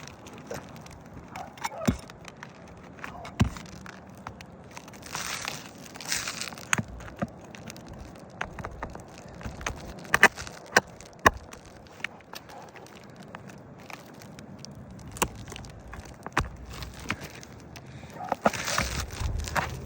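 Scattered sharp clicks and knocks, with a few short stretches of scraping, from prying nails out of asphalt roof shingles and working the shingles loose. The loudest knocks come in a quick cluster about halfway through.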